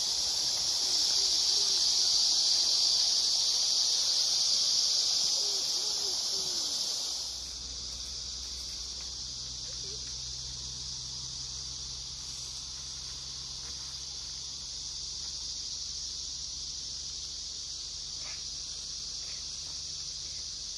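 Steady, high-pitched drone of insects calling in a continuous chorus. It is louder for about the first seven seconds, then drops to a quieter, even level for the rest.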